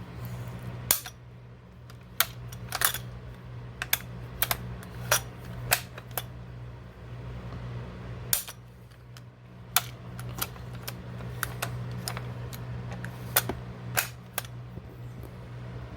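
Sharp metallic clicks and clacks, a couple of dozen at irregular spacing, from a Vetterli bolt-action rifle's bolt being slid into the receiver, its catch key dropped and the action worked. A steady low hum runs underneath.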